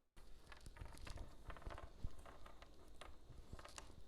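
Jigsaw puzzle pieces being flipped face up and set down on a table by hand: a quiet, irregular patter of light taps and clicks.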